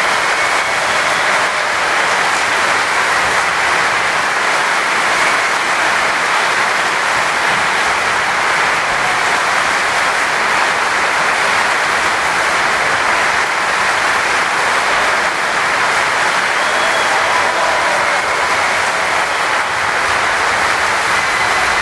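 Long, steady applause from a large audience, dense and even throughout.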